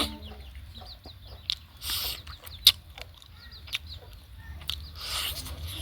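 Chickens clucking and chirping close by, mixed with sharp clicks and two short crunches from someone eating.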